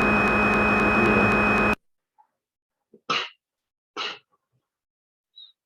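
CNC simulator software's machine-running sound effect: a steady hum under a high whine that cuts off abruptly just under two seconds in. Two short noisy bursts follow, about a second apart.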